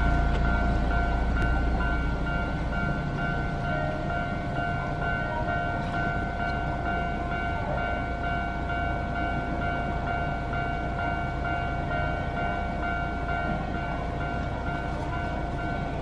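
Railway level-crossing warning bell ringing in a rapid, evenly repeating electronic ding, the signal that a train is approaching the crossing. A low rumble fades away over the first couple of seconds.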